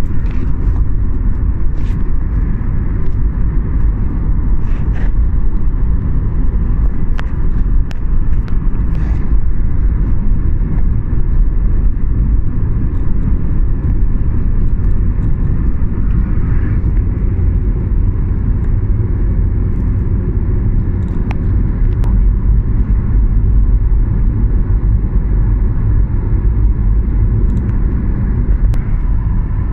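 Dubai Metro Red Line train running at speed, heard from inside the carriage as a loud, steady low rumble with a few faint clicks.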